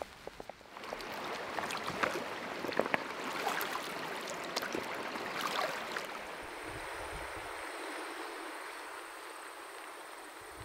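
Shallow mountain stream running over rocks, with small splashes and trickles. About six seconds in it gives way to a steadier, quieter hiss.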